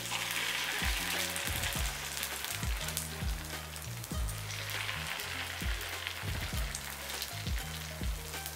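Paniyaram batter sizzling as it is ladled into hot sesame oil in the wells of a paniyaram pan, the hiss swelling at the start and again about four seconds in. Background music with a steady beat and bass line plays along.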